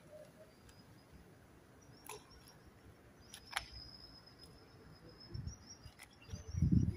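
Handling noise from a hand-held phone: a few sharp clicks, then low rubbing thumps that are loudest near the end. A faint, thin, high steady whine runs behind them from about halfway in.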